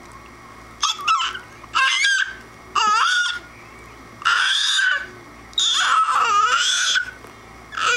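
An 8-month-old baby boy squealing: a string of five loud, high-pitched cries about a second apart, starting about a second in, with another beginning near the end.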